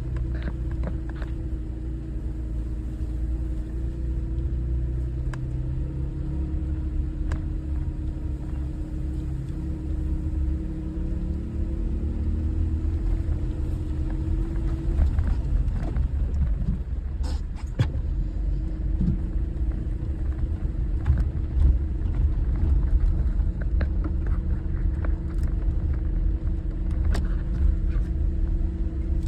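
Jeep engine pulling slowly in second gear, a steady low rumble with a raspy exhaust note from broken exhaust couplers, an exhaust leak. The engine note dips briefly about halfway through, with a few knocks.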